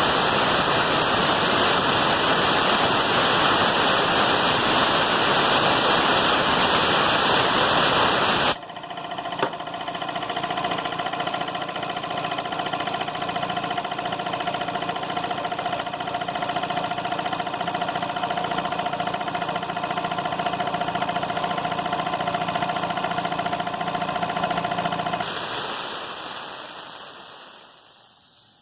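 Compressed air bleeding from an Emglo K15A-8P air compressor's tank with a loud, steady hiss for about eight seconds, stopping abruptly. The pressure switch then kicks the compressor on and its motor and pump run steadily, until it cuts out near the end with a hiss that fades away as the pressure switch's unloader valve vents the head.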